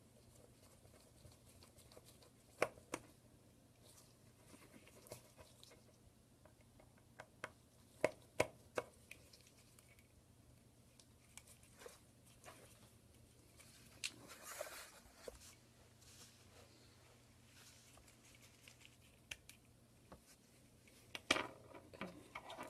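Faint, scattered clicks and taps of small tools and parts being handled on an iPhone 6 during reassembly, with a few sharper clicks in quick pairs and a brief rustle about two-thirds of the way in.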